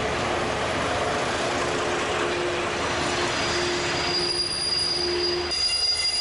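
SNCF X4200 diesel railcar running, a steady dense noise with a low hum. About three seconds in a thin high squeal joins it, and near the end high steel-wheel squeal stands out as a railcar pulls in along the platform.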